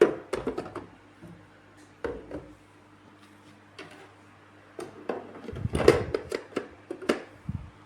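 Hard objects knocking and clattering as they are handled and set down, with the loudest cluster about two thirds of the way in, over a faint steady hum.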